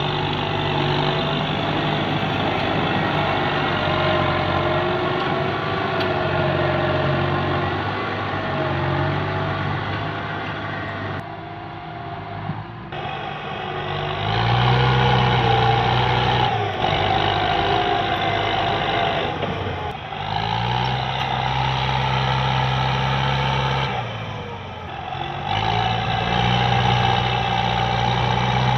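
Kubota tractor's diesel engine working under load as its front blade pushes a heap of brush and branches. In the second half it revs up three times, holds high, then drops back.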